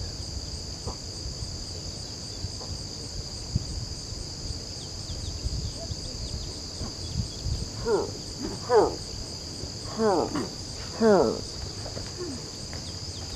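Steady chorus of insects, crickets by their sound, trilling high in the background. Between about eight and eleven seconds in come four short, loud falling calls.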